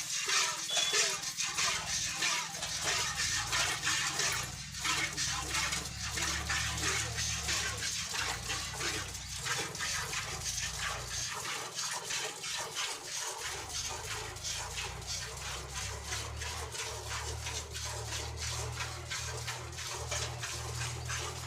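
Milk squirting in repeated jets into a pail as a cow is milked by hand.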